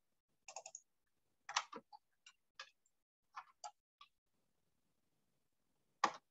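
Computer keyboard keystrokes as a password is typed: an irregular run of light key clicks over the first four seconds, then a single louder key click about six seconds in.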